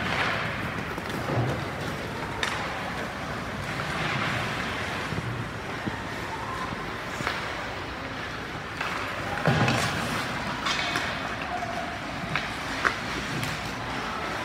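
Indistinct background voices over a steady noisy hubbub, with a few sharp knocks, one about two and a half seconds in and two more near the end.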